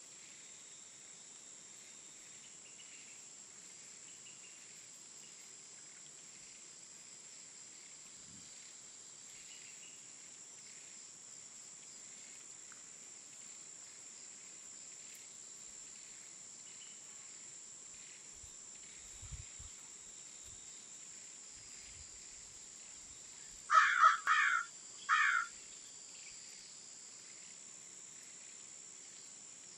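Outdoor ambience: a steady high-pitched insect buzz with faint scattered bird chirps, then three loud bird calls in quick succession about 24 seconds in.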